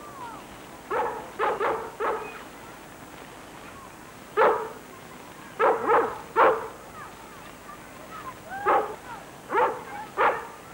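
A dog barking in short clusters of two or three barks, about a dozen in all.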